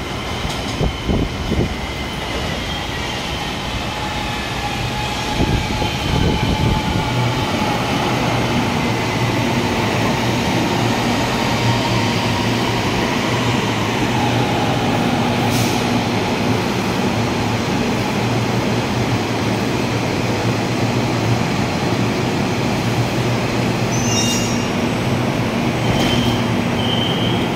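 CSR Zhuzhou six-car LRT train pulling into the station and slowing, a steady electric hum with a whine that falls in pitch as it slows. Short high beeps sound near the end.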